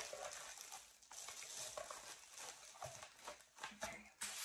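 Faint rustling and crinkling of a clear plastic bag being handled around a ceramic wax warmer, with small scattered clicks and taps.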